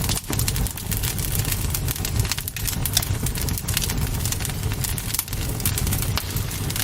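Bonfire burning: rapid, irregular crackles and pops over a steady low rumble.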